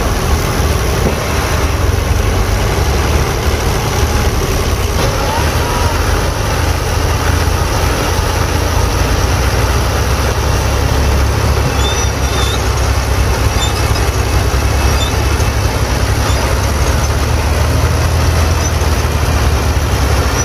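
Fiat 480 tractor's three-cylinder diesel engine running steadily under load, a loud low rumble, as it strains with its wheels sunk in a deep pile of chopped green fodder.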